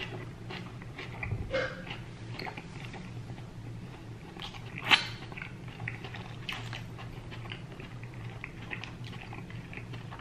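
Close-miked chewing and mouth sounds of a man eating a mouthful of steak burrito: many small wet clicks and smacks, with one louder smack about halfway through.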